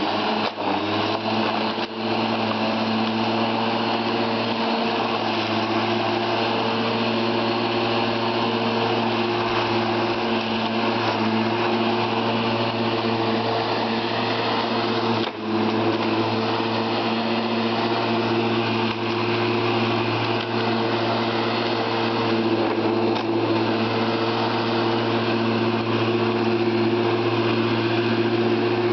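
Einhell lawnmower coming up to speed and then running steadily, with a brief dip about halfway through.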